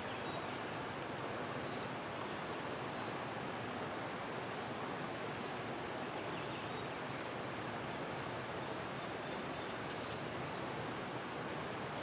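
Steady rush of flowing creek water, with a few faint bird chirps above it.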